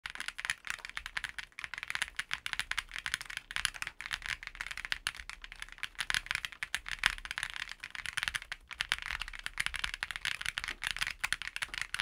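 Fast, continuous typing on an aluminium-case, gasket-mounted LEOBOG Hi75 mechanical keyboard with PBT keycaps. Many keystrokes a second, close-up.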